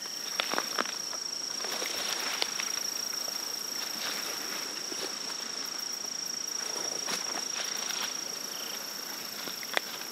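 Insects droning in one steady high-pitched tone, with footsteps and rustles through leafy undergrowth, a few sharp snaps scattered through it.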